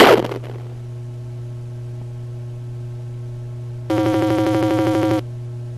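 Electronic sound effects: a steady low drone hums throughout, after a loud burst of noise at the start that falls in pitch and dies away within half a second. About four seconds in, a rapid buzzy beeping of dialogue-box text blips, about eight a second, plays for just over a second as the text types out.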